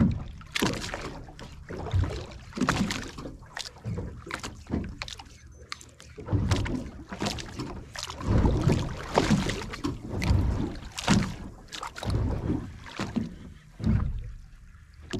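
Water slapping and sloshing against the hull of a drifting fishing boat in irregular surges.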